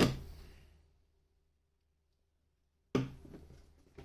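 Hard plastic knocks from a clip-lock storage box being handled: one right at the start and another about three seconds in, with a silent gap between and a smaller knock near the end.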